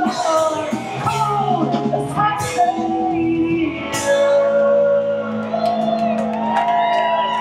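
Live rock band of electric guitars, bass and drums with shouted vocals. About four seconds in a cymbal crash lands and the band holds a long ringing chord, the close of the song.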